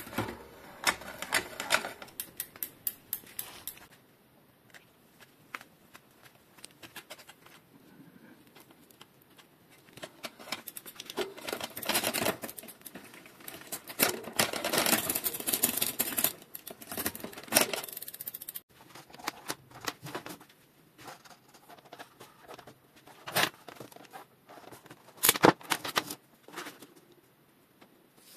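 Rapid metallic clicking and ticking in bursts from a mountain bike's chain, chainrings and front derailleur as the drivetrain is worked by hand, with a few sharp single clicks near the end.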